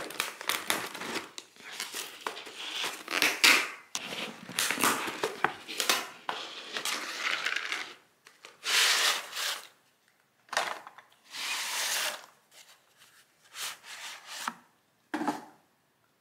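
Snack packaging being handled and opened: plastic container lids and sealing stickers pried off, and paper buckets and a paperboard hot dog box rubbed and crinkled, in irregular rustling bursts.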